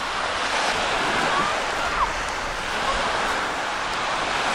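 Small sea waves washing in and out on a pebbly beach, a steady surging hiss that swells and eases. A few brief faint calls sound over it.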